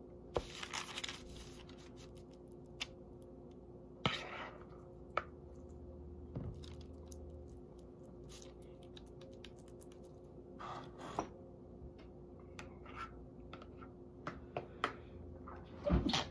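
Spoon and bowl scraping raw ground turkey out onto parchment paper: scattered short scrapes, rustles and clicks over a steady low hum, with a louder knock near the end.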